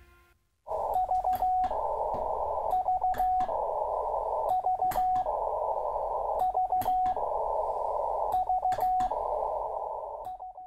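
Morse code (CW) heard on a shortwave ham radio receiver through a narrow filter: short groups of beeps at one pitch, about every two seconds, with band-limited hiss between them and occasional clicks of static.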